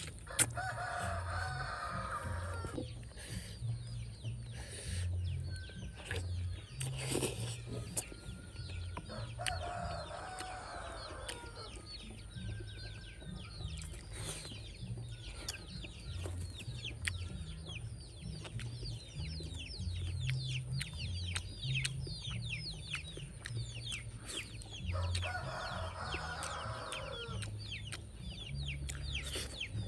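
Rooster crowing three times, each crow about two seconds long and falling in pitch at the end. Between the crows there is rapid, high chirping.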